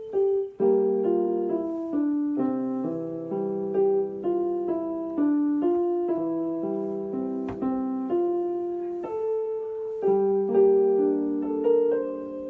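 Background piano music: a gentle melody of single notes and chords, each struck note fading away. A short click sounds once a little past halfway.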